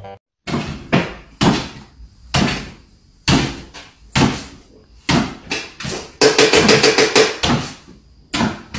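A small dog's repeated jumps landing on a wooden floor: a series of sharp thuds about once a second, with a quicker run of them a little past the middle.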